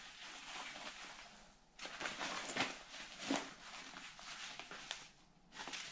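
Faint rustling and handling of a camo tactical vest's fabric and straps, with a few light ticks, pausing twice briefly.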